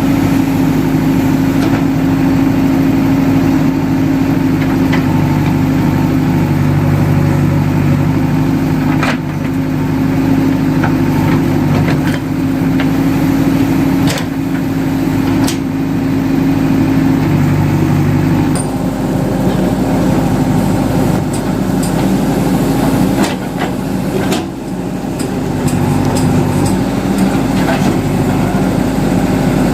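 JCB 3DX backhoe loader's diesel engine running steadily while it digs, its pitch changing about two-thirds of the way through, with scattered sharp clanks from the working arm and bucket.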